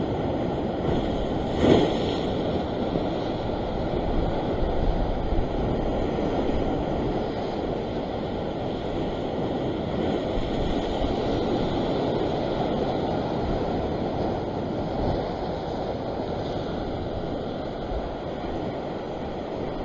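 Ocean surf washing against a rock ledge, a steady rushing wash with wind on the microphone; one short knock about two seconds in.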